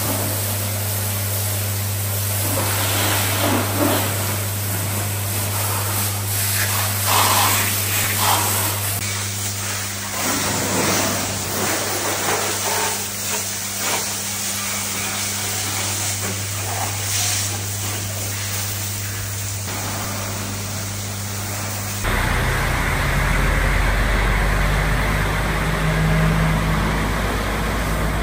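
High-pressure water spray hitting a truck's bodywork and loader crane, over a steady hum from the pressure washer's pump. About two-thirds of the way through, the sound changes abruptly to a truck's diesel engine running with a deep, low rumble.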